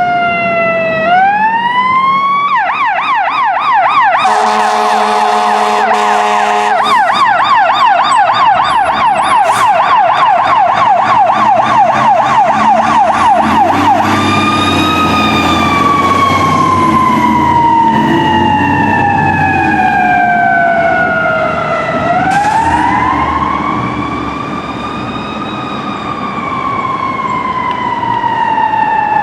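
Emergency vehicle's electronic siren: a falling wail that sweeps back up about a second in, then a fast yelp until about halfway through, then a slow wail that falls, sweeps up again about 22 seconds in, and falls once more. A steady air horn blast of about two and a half seconds sounds over the yelp about four seconds in, and an engine rumbles under the later wail.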